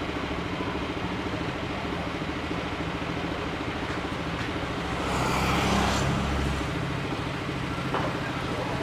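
Steady engine rumble of motor traffic, with one louder swell about five seconds in as a vehicle passes close.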